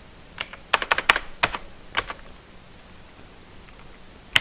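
A quick run of about eight computer keyboard keystrokes within the first two seconds, several of them in rapid succession.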